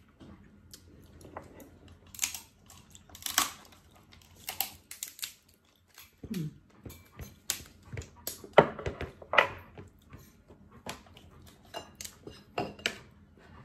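Eating steamed lobster and crab by hand: irregular cracks and clicks of shell being broken and picked apart with a metal pick, with slurps as meat is sucked from the pieces.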